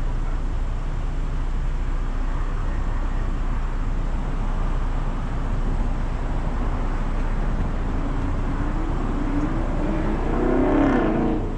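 Car engine idling with a steady low rumble. Over the last few seconds a passing vehicle grows louder, shifting in pitch, then drops away sharply at the end.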